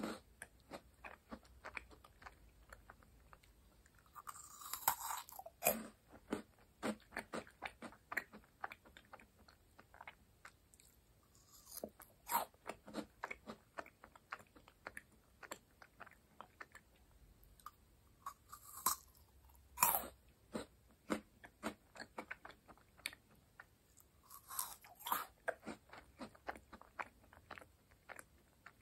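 Close-miked chewing of crisp meringue cookies: a steady run of small, dry crunches, with several louder bites scattered through.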